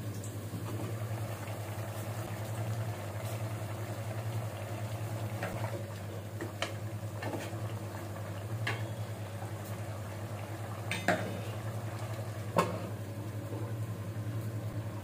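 Bottle gourd and prawn curry simmering in an aluminium pot, bubbling softly over a steady low hum. A few short sharp knocks against the pot stand out, the loudest two about 11 and 12.5 seconds in.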